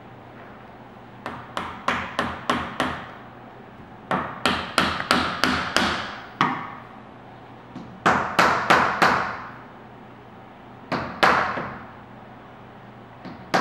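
Plastic-and-rubber-faced mallet tapping shims in between a door frame's top rail and the header, which snugs the jamb tight to the rail. The taps come in quick runs of five to eight, about three a second, with short pauses between runs.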